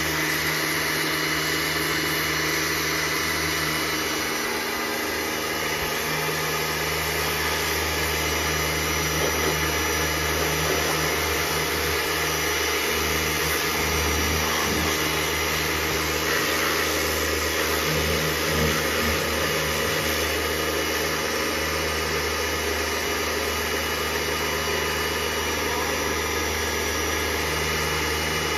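Kärcher K 2 Universal Car electric pressure washer running steadily, its motor and pump humming while the water jet hisses against the car's body.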